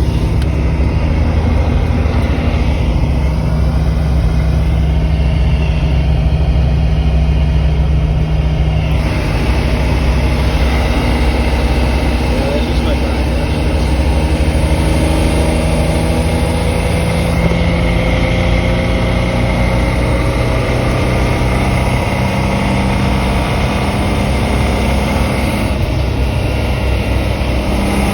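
1995 BMW M3's straight-six engine and road noise while driving. The engine note climbs slowly under acceleration and changes abruptly a few times, as at gear shifts.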